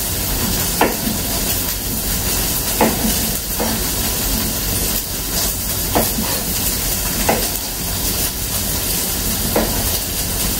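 A kitchen knife cutting through cauliflower florets and knocking on a cutting board, about six separate chops spaced a second or two apart, over a steady hiss.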